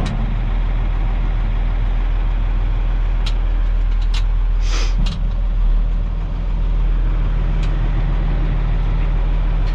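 Dump truck's diesel engine idling steadily while the emptied dump bed is lowered; the engine note shifts about halfway through. A few short, sharp hisses and clicks are heard over it, one longer hiss about five seconds in.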